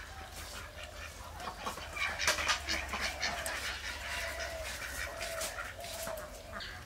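Chickens clucking, with scattered short clicks and scrapes.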